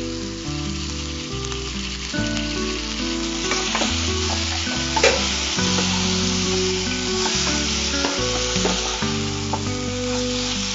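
Chicken pieces and mango masala sizzling in a non-stick frying pan, stirred and turned with a spatula that clicks against the pan a few times, most sharply about five seconds in.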